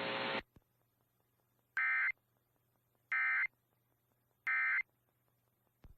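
Emergency Alert System SAME end-of-message data bursts: three identical short buzzy digital bursts about a second and a half apart, marking the end of the alert. Before them a hissy tone cuts off about half a second in.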